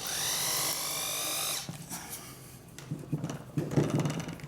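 Power drill motor spinning up with a rising whine, running at a steady speed for about a second and a half, then stopping. Near the end come irregular low clicks and knocks.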